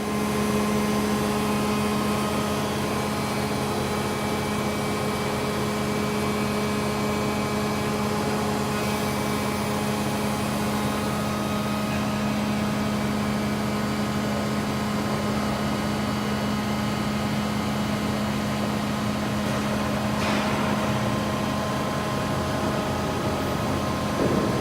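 Hydraulic power unit of a Techno T50-3 CNC tube bender, a 20 hp pump, starting up and then running with a steady hum. A brief mechanical sound comes about two-thirds of the way through, and a short knock near the end.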